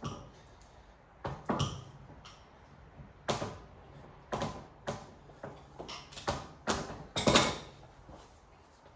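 Heavy 3-gauge wire being handled: about a dozen irregular knocks and clatters, the loudest about seven seconds in.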